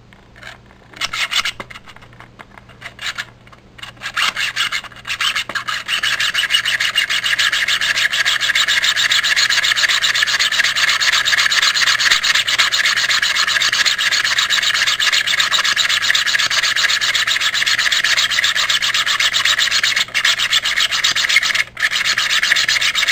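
3D-printed plastic spiral push drill being pumped by hand, its bit rasping as it bores into a block of wood. A few separate strokes come first, then a fast, unbroken rasping from about six seconds in, with two brief breaks near the end.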